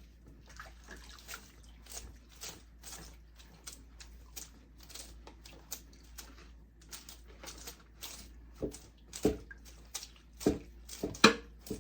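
Human-hair wigs being washed by hand in water: repeated splashing and sloshing, with several louder splashes in the last few seconds.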